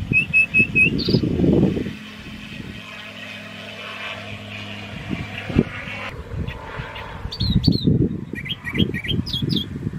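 Wind buffeting the microphone in gusts, over the steady drone of a distant light aircraft's engine that stops about six seconds in. Small birds chirp: a quick run of four short notes at the start and a flurry of calls near the end.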